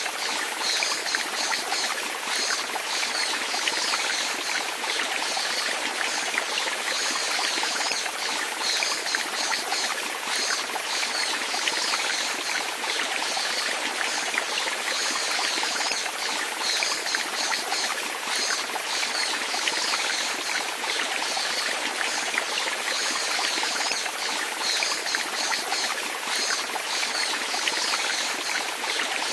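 Running water, a stream trickling and splashing steadily.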